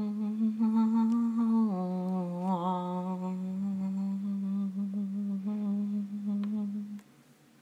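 A person humming long held notes, steady in pitch; the tone steps down slightly about two seconds in and stops shortly before the end.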